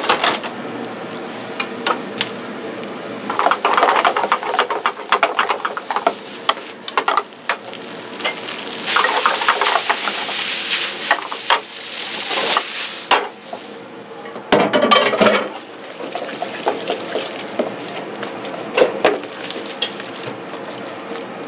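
Cooking in a hot pan: food sizzling while a metal utensil stirs and scrapes, with clinks of cookware coming in bursts.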